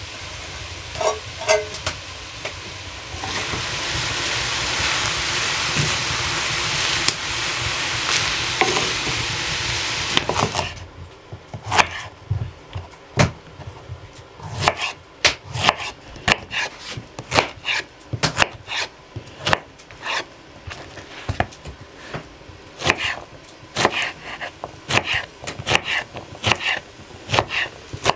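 A loud steady hiss for about seven seconds, cutting off suddenly, then a kitchen knife chopping on a wooden cutting board in sharp, irregular strokes, roughly one to two a second.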